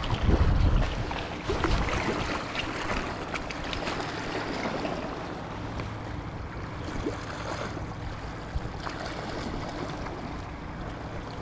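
Small waves washing and splashing against shoreline rocks, a steady watery hiss. Wind buffets the microphone in about the first second.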